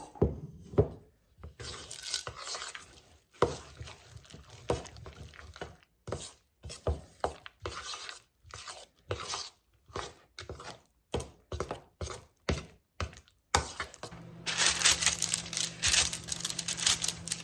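Spoon and bowl clinking and knocking in a series of short sounds, then, from about fourteen seconds in, a microwave oven running with a steady hum and hiss as it melts chocolate chips.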